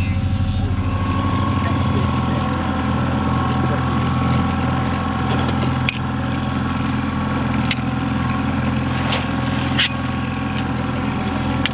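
Boat's outboard motor running steadily at trolling speed, with a few short knocks and clatters in the second half.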